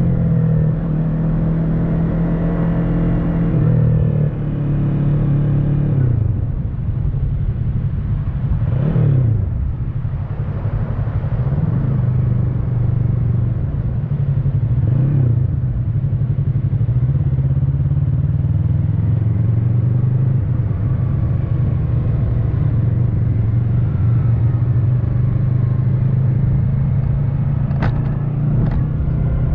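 Motorcycle engine running under way, its pitch falling and rising as the bike slows and picks up again a few seconds in, then holding a fairly steady cruise. A sharp click sounds near the end.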